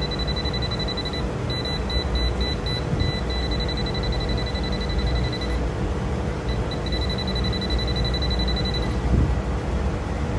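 A Daikin non-inverter air conditioner powered up with its compressor disconnected: a steady low rumble under a thin high-pitched electronic tone. The tone breaks into short beeps about a second and a half in. It stops about halfway through and returns briefly near the end.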